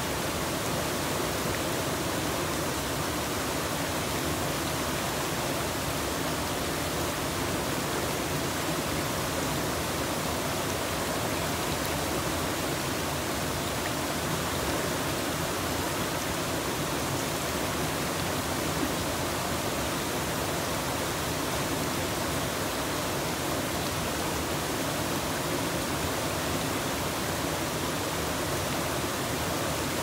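Small two-tiered river waterfall, water pouring steadily over rock ledges into the pool below: a constant, even rush of water that never lets up.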